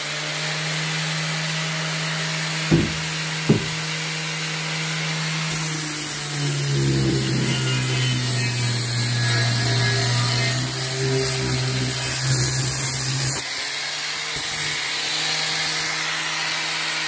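Angle grinder with a flap disc running steadily; from about 6 to 13 seconds in its pitch drops and a grinding hiss rises as it is pressed against steel, then it spins back up when the load comes off. Two sharp knocks sound around 3 seconds in.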